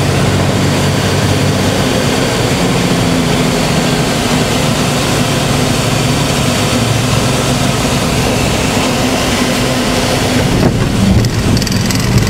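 Cabin sound of a Cessna 206's flat-six piston engine and propeller running steadily at low approach power over rushing air noise. About eleven seconds in the sound changes and there are a few short bumps, typical of the wheels touching down on the runway.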